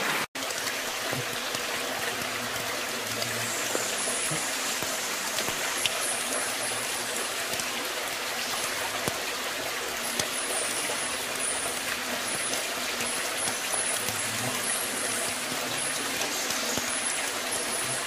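Steady rush of a shallow brook running over rocks, briefly cutting out just after the start.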